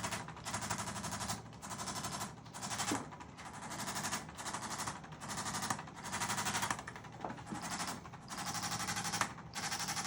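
Handheld electric percussion massager working on the upper back and shoulders: rapid buzzing taps in repeated bursts of about a second, with short breaks as it is lifted and moved.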